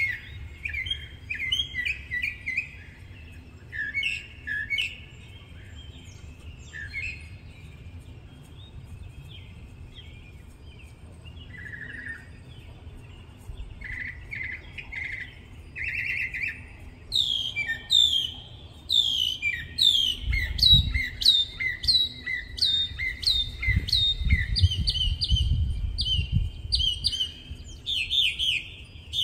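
Northern mockingbird singing: a string of varied chirps and trilled phrases, each repeated a few times before it switches, and in the second half a quick downward-sweeping note given over and over in fast series.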